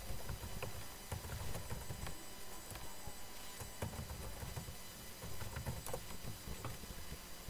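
Computer keyboard keys clicking in an irregular run of keystrokes as text is typed, over a low background hum.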